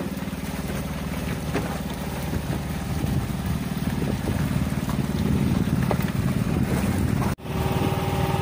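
Engine running steadily, a low even hum with faint clicks over it; the sound cuts out for an instant about seven seconds in.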